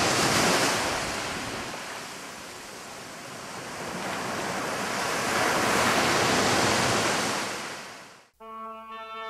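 Ocean surf: a rushing wash of waves that swells, eases off, and swells again, then fades and cuts off abruptly near the end. Brass music comes in as it stops.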